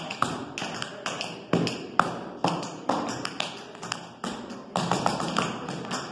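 Tap shoes striking a hardwood dance floor in a quick, uneven rhythm of sharp taps mixed with several louder stomps, each ringing briefly in the room.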